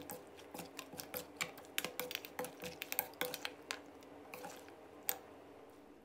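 A metal spoon tossing wet shredded mango salad in a stainless steel bowl: faint squishing with quick, irregular clicks of the spoon against the bowl, thinning out after about four seconds.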